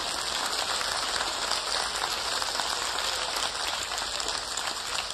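Audience applauding: a steady, even clatter of many hands clapping.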